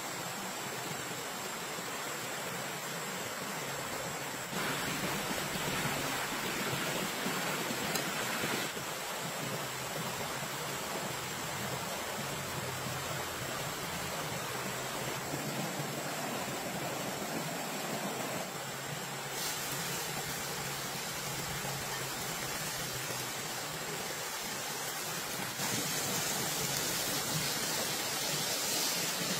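Shallow creek running over rocks: a steady rushing, with a few abrupt shifts in level. Near the end a brighter, louder hiss comes in as sliced pork sizzles in a hot wok.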